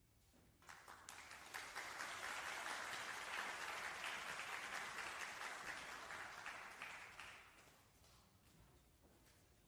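Audience applauding. It starts about a second in, holds steady, and dies away after about seven seconds.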